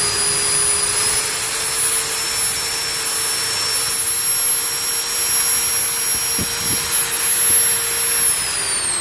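Total 1010 W hammer drill running free at high speed, a loud steady motor whine with several high tones. The pitch steps up a little about a second in, then near the end the trigger is let go and the motor winds down with falling pitch.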